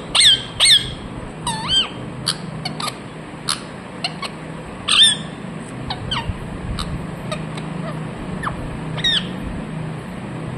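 Indian ringneck parrot chirping: a quick run of rising-and-falling calls in the first second, then short scattered chirps, one louder about five seconds in.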